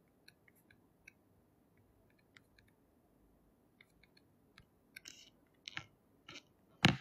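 Faint, scattered small clicks and taps close to the microphone. They come more often and louder in the last two seconds, then a single louder knock just before the end.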